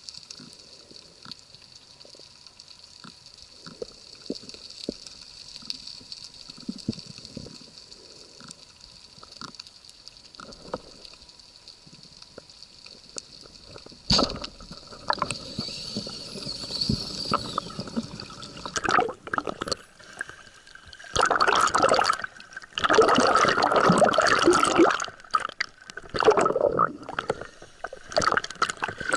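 Underwater sound over a reef: faint scattered clicks and crackle, then about fourteen seconds in a single sharp crack as a speargun fires at a Spanish mackerel. From about twenty-one seconds there are loud bursts of gurgling and splashing water as the diver surfaces.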